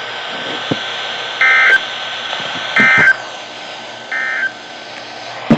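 Three short warbling bursts of SAME digital data from a NOAA weather radio broadcast, about a second and a half apart: the end-of-message code that closes a severe thunderstorm warning. They play over the radio's steady hiss, and a sharp click comes near the end.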